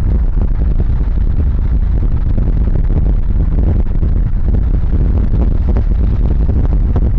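Car driving: a loud, steady low rumble of road and wind noise, with scattered faint ticks.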